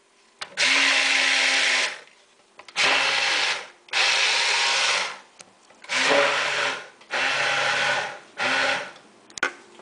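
Hand-held immersion blender pureeing whole canned tomatoes in a bowl, run in about six short bursts of a second or so each with brief pauses between.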